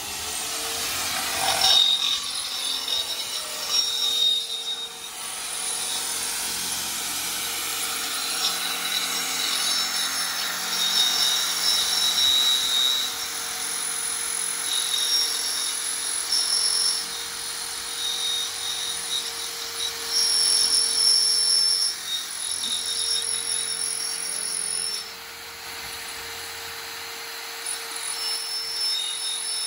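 Corded electric hand drill running steadily with a high squeal that comes and goes as its bit bores into the threaded steel end of a donkey cart's axle spindle. It runs a little quieter near the end.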